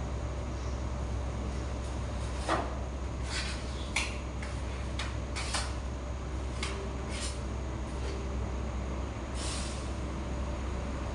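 Metal filler knife scraping two-part body filler across a dented car panel in short, irregular strokes, about eight in all, over a steady low hum.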